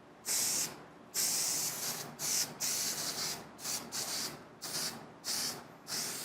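Aerosol can of spray adhesive spraying in about ten short, sharp hissing bursts with brief pauses between them, laying a coat of glue on for a headliner.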